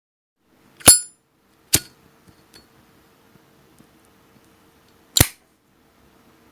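Zippo lighter worked by hand: the hinged metal lid flicked open with a ringing metallic clink about a second in, the flint wheel struck a moment later, and the lid snapped shut about four seconds after that.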